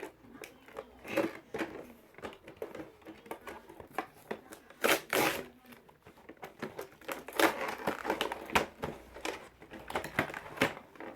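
Packaging being opened and handled: irregular crinkling and rustling with scattered clicks and knocks, loudest in a few bursts near the middle.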